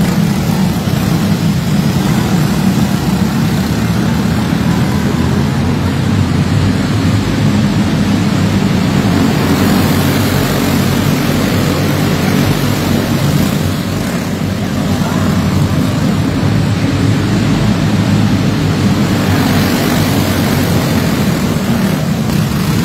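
A pack of racing karts' small single-cylinder engines running hard together on a dirt oval, a loud steady buzz that swells twice as the field comes past close by.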